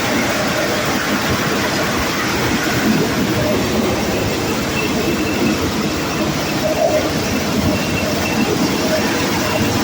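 Motorised corn sheller with a conveyor running, a loud, steady, dense clattering rattle.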